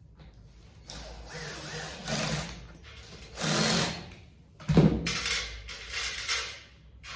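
A small power tool running in several short bursts of a second or two each, the last starting abruptly.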